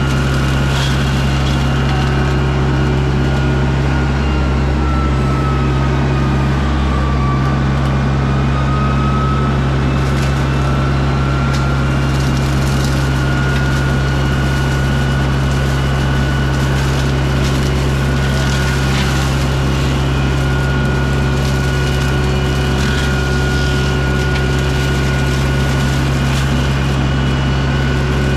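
John Deere 60G compact excavator's diesel engine running steadily under load, with the high whine of the Baumalight brush mulcher's hydraulic drive, which sags in pitch for a couple of seconds about six seconds in as the head bites into brush and then recovers. Scattered sharp cracks run through it.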